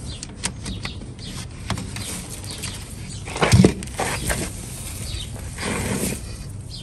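Peat moss and cow-manure potting mix tipped from a bucket into a planting hole: a soft rustling fall of loose material with scattered small clicks, and a single thud about three and a half seconds in.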